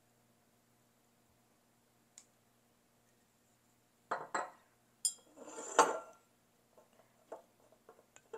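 Quiet room tone, then clinks and knocks from about four seconds in as a metal measuring spoon meets a stainless steel mixing bowl and sauce bottles are put down and picked up on a stone counter. The loudest clatter comes about six seconds in, followed by a few light taps.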